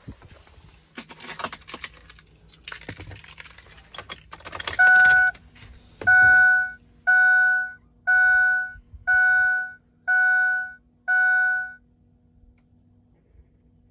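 Rustling and key clicks, then a 2006 Ford F-250's warning chime sounds seven times, about once a second, as the key is switched on with the left front door ajar. A faint steady hum sits under the chimes.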